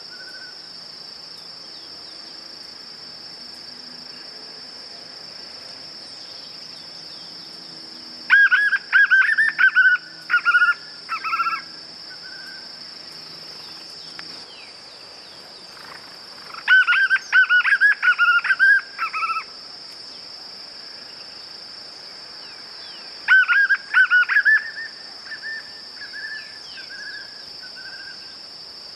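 A white-eared puffbird (joão-bobo) singing: three bouts of rapid, repeated whistled notes, the first about a third of the way in, the second past halfway and the third near the end, where it trails off in softer notes. A steady high insect drone runs underneath throughout.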